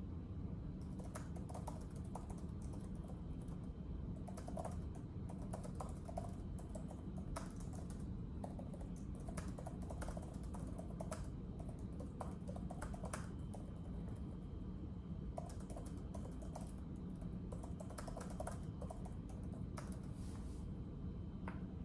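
Typing on a keyboard: irregular runs of keystroke clicks broken by short pauses, over a steady low background rumble.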